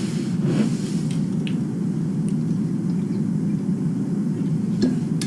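Steady low rumble of background machinery, with a few faint clicks and taps, one slightly louder near the end.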